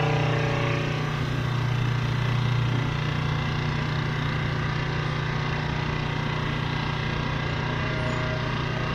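Open-ended drum sander running steadily with a low motor hum while sanding a wooden board that feeds through it.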